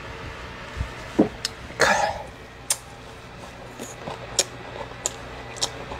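A man coughs once, a short rough burst about two seconds in, around a drink from a cup and bites of food. Small sharp clicks come now and then around it.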